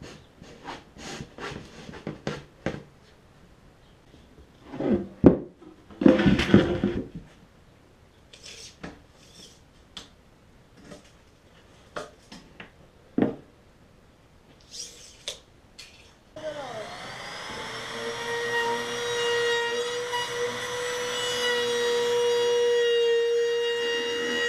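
Knocks and clatter of plywood drawer parts being handled, then about 16 seconds in a compact trim router switches on, spins up with a rising whine and runs steadily, growing louder as it cuts into the plywood drawer box.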